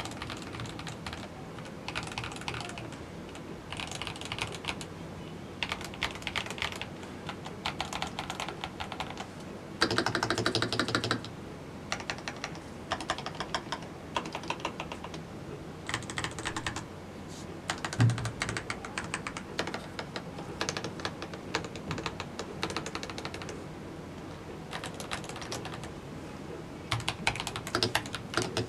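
Typing on a CIDOO ABM098 mechanical keyboard: runs of quick key clicks broken by short pauses, with a denser, louder flurry of keystrokes about ten seconds in and a single low thud a little later.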